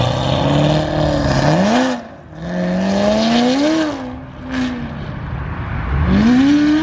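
C7 Corvette's V8 accelerating hard away from the camera, the engine note climbing and then dropping at gear changes about two and four seconds in. Near the end a louder engine revs up close by.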